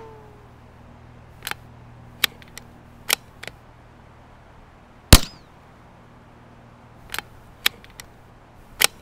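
Suppressed gunshots from a Savage 93R17 bolt-action rimfire rifle in .17 HMR, fitted with a SilencerCo Sparrow 22 suppressor. Each shot is a short, sharp crack: the loudest about five seconds in, another near the end. Lighter metallic clicks fall between the shots as the bolt is worked.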